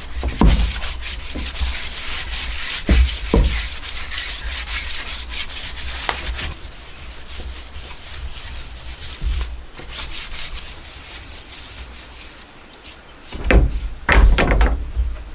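Wood being sanded by hand with quick back-and-forth rasping strokes, which stop about six seconds in. A few knocks follow near the end.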